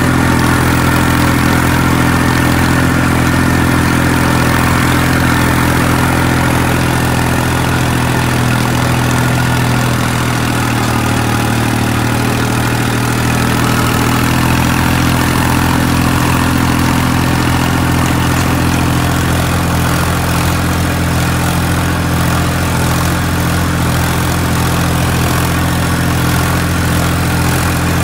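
Massey Ferguson 241 tractor's three-cylinder diesel engine running steadily under the load of a rotavator, holding its revs without dropping.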